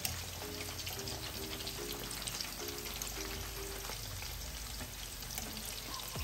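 Battered pork ribs deep-frying in hot canola oil in a stainless steel pan: a steady crackling sizzle of bubbling oil during the last minute of frying to crisp the meat. Soft background music notes sound over it for the first few seconds.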